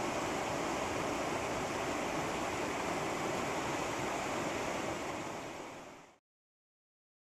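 River water rushing over a shallow rocky riffle: a steady wash that fades out about five to six seconds in, down to silence.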